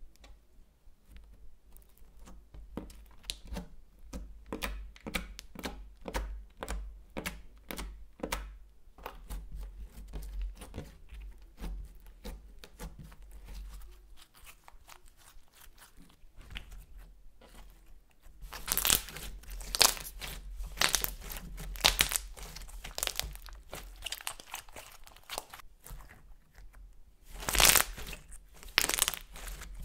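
Slime being kneaded and squeezed by hand with crushed makeup powder worked into it, giving sticky clicks and crackling pops. The clicks come one by one at first, fade briefly after the middle, then turn louder and denser as the now purple slime is squeezed.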